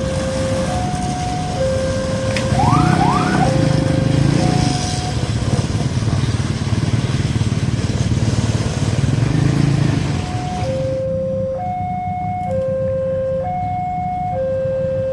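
Railway level-crossing warning alarm sounding two alternating tones, about one change a second, over the loud rumble of a passing train. The train noise cuts off suddenly about eleven seconds in as the last coach clears, leaving the alarm on its own. Two quick rising chirps sound about three seconds in.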